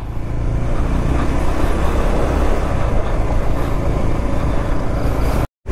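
Motorcycle being ridden along a road, its engine and the wind and road noise blending into a steady rumbling rush on a handlebar-mounted phone microphone. The sound cuts out completely for a moment near the end.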